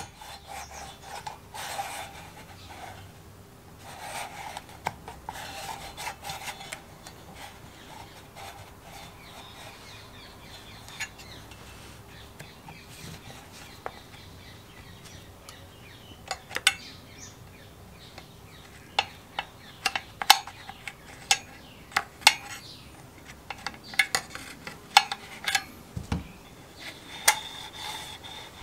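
Robin EC17 recoil starter being reassembled by hand: the plastic pulley rubs and scrapes as it is seated and turned in its metal housing over the recoil spring, then a string of sharp clicks and knocks through the second half as the pulley is wound and held.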